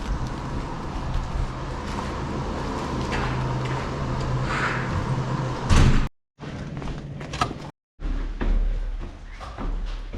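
Door opening and shutting, with a loud thud about six seconds in, over a steady low hum.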